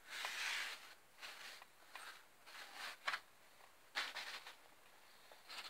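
A hand sweeping loose sawdust off a tabletop: a series of short brushing strokes, about seven of them with brief pauses in between.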